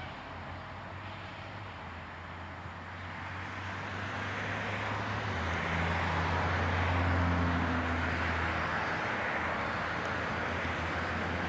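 A passing motor vehicle: a low engine hum under a wash of noise that swells to its loudest about seven seconds in, then eases only a little.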